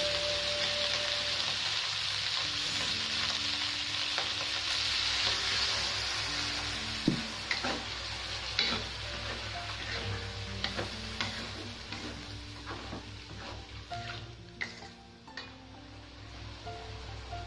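Beef skin and green chilies sizzling in a wok while being stir-fried with a wooden spatula. The spatula knocks and scrapes against the pan in the second half, and the sizzle dies down toward the end.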